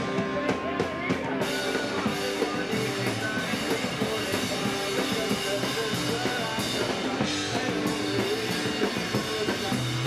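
Rock band playing, loud and dense: a drum kit with bass and guitar.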